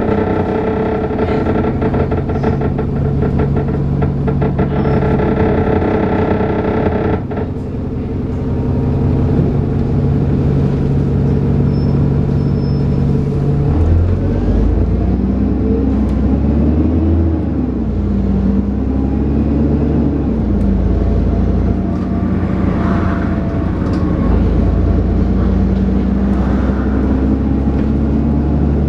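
Dennis Trident 2 double-deck bus's diesel engine working hard with its 'hoover' whine and thrash. About seven seconds in it eases off. Around halfway it pulls away again, its pitch climbing and dropping back several times as it moves through the gears.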